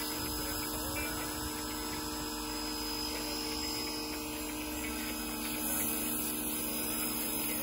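Ryobi 1200 PSI electric pressure washer running steadily, its motor and pump humming under the hiss of the water jet as it blasts dirt off a fiberglass boat deck.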